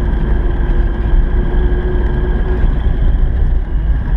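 VAZ 2106 car driving on a dirt field track, heard from inside the cabin: a steady engine drone over a heavy low rumble from the road.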